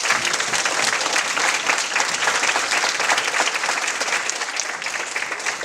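Audience applause: many people clapping steadily, with no let-up.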